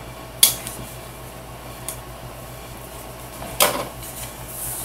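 Two short scrapes of a knife blade scoring a groove into a wooden marquetry panel, about three seconds apart.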